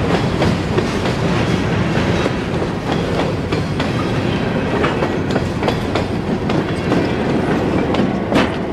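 Loaded covered hopper cars of a freight train rolling past close by, a steady rumble with wheels clicking over the rail joints. Near the end the trailing GP10 locomotive rolls by, with a sharp click about eight seconds in.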